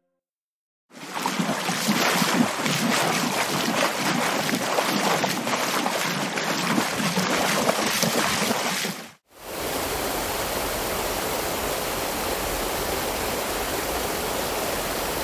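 Rushing water at a river barrage. About a second in, a rough, gusty rush starts and runs for roughly eight seconds. After a brief break it becomes an even, steady rush.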